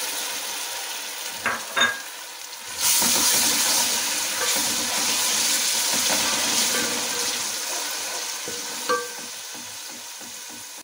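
Ginger-garlic paste sizzling in hot oil with fried onions in a metal pot as it is stirred with a wooden spoon. The sizzle gets suddenly louder about three seconds in, then slowly eases off.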